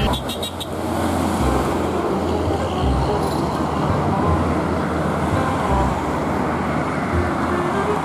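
Highway traffic: trucks, a coach and cars passing on a multi-lane road, a steady noise of tyres and engines with a low rumble underneath.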